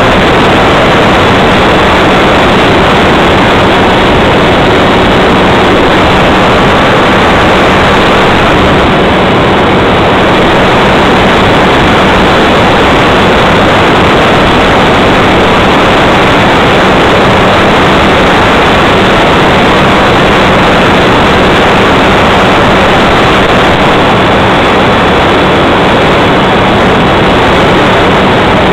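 Radio-controlled model airplane in flight, recorded on board: its motor and propeller run steadily under a loud, even rush of wind over the microphone, with a faint steady hum underneath.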